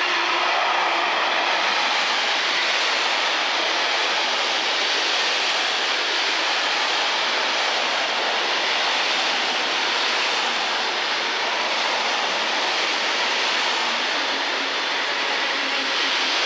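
Container freight train's wagons rolling past: a steady, even rush of wheels on rails.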